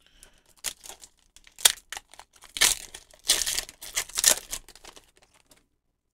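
A Pokémon card booster pack's foil wrapper being torn open and crinkled by hand: a string of short rips and crinkles, loudest in the middle, stopping about half a second before the end.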